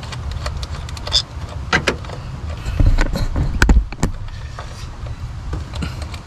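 Scattered clicks and knocks of hand tools working on the engine during spark plug and ignition coil replacement, with a few louder knocks a little before the middle, over a steady low rumble of wind on the microphone.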